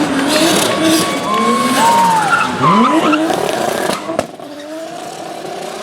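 Rally car engine revving hard, its note dropping sharply and climbing again about two and a half seconds in, with tyres skidding. It fades after a sharp click near the end.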